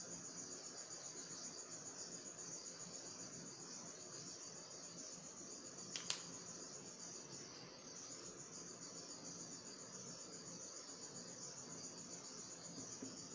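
Faint, steady high-pitched insect chirring that pulses rapidly, about four times a second, with a single sharp click about six seconds in.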